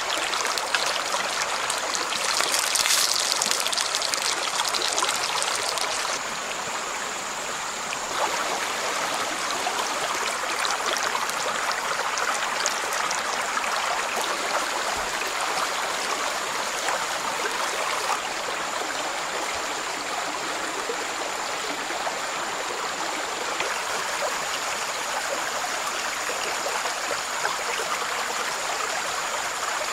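Stream water running and splashing over rocks, a steady rushing with some trickling. It is louder and hissier for a few seconds near the start.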